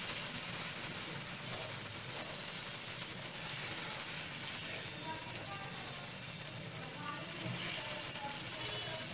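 Semolina uttapam batter sizzling steadily in hot oil on a pan as a ladle spreads it out.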